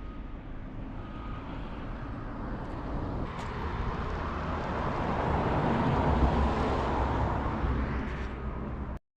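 Nissan Skyline C110 'Kenmeri' on the move, steady engine and road noise that swells and eases off, then cuts off abruptly near the end.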